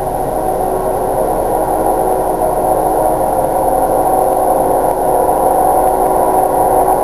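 Grade-crossing warning bells ringing continuously with the gates down, heard from inside a car with its engine idling.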